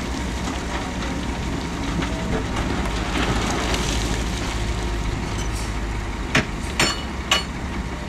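Heavy earthmoving machinery running with a steady low diesel rumble. Three sharp clanks come in quick succession near the end.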